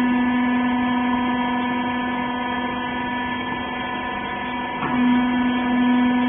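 Clothes baler's electric motor and hydraulic power unit running with a steady hum. About five seconds in the pitch dips briefly and the hum then comes back louder.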